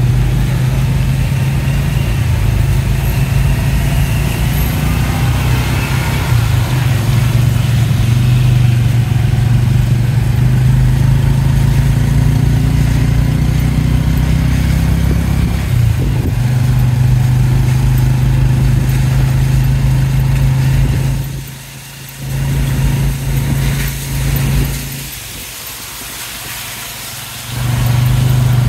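Motorbike engine of a tuk-tuk running steadily under way, a constant low drone with traffic around it. It drops away briefly twice in the last several seconds, then picks up again.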